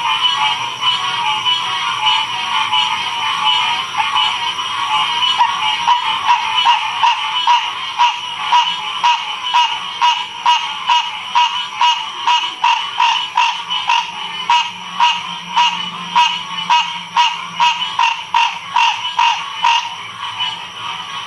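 A chorus of frogs calling steadily. About six seconds in, one loud call repeats in a fast, even rhythm of roughly two to three pulses a second, fading near the end.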